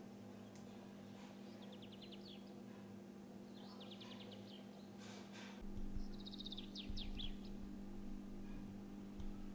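A small bird chirping in short trills of rapid high notes, three times, over a steady low hum, with some low rumbling thumps in the second half.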